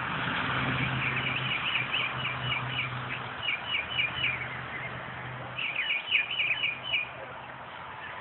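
Small birds chirping in quick series of repeated notes, in two bouts, over a steady low hum.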